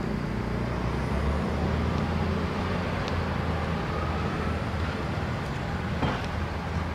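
A steady low engine hum with general traffic noise, and a faint click about six seconds in.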